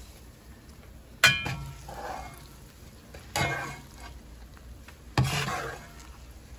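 A metal skimmer spoon clanks against a frying pan of hot oil three times, about two seconds apart. Each ringing knock is followed by a short scrape and sizzle as the spoon is worked through the oil.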